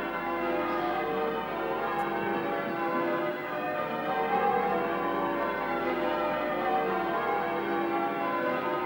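Church bells pealing: many bells struck one after another, their tones overlapping and ringing on without a break.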